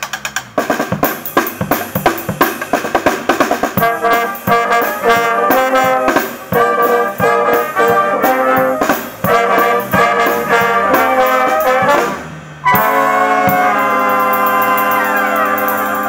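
Brass band of saxophones, trumpets, trombone, tuba and drum kit playing a tune, with regular drum-kit strokes under the horns. A little after halfway there is a brief break, then the whole band holds a long sustained chord.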